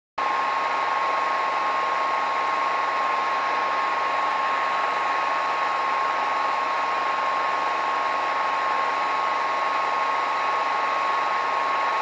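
Steady hiss of television static with one steady high tone running through it. It starts suddenly right at the beginning and holds at an even level throughout.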